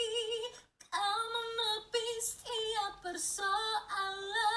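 A teenage boy singing in a high, female-style voice, imitating a legendary female singer, holding long notes with a wide vibrato. There is a brief break in the singing about a second in.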